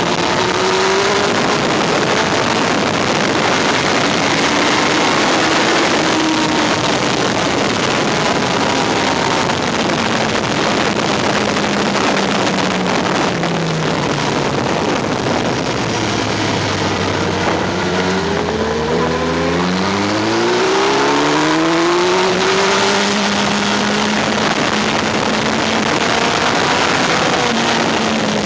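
Yamaha R1's inline-four engine at speed, heard from the bike itself under heavy wind rush on the microphone. The engine pitch rises and falls through the gears, dropping low a little past halfway as the bike slows, then climbing again as it accelerates.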